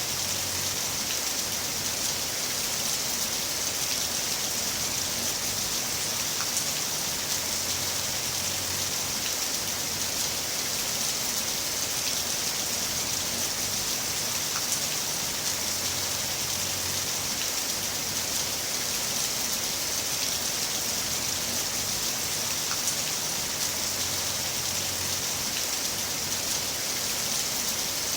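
Heavy rain falling steadily: a dense, even hiss of rain on surfaces, with scattered sharper drop ticks.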